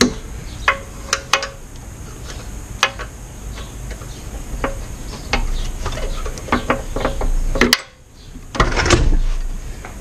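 Scattered metallic clinks and knocks of hand tools against metal pump-housing parts being worked and handled.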